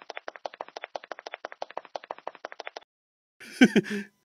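A rapid, even run of sharp clicks, about eleven a second, that stops about three seconds in. It is followed near the end by a brief voice sound from a man.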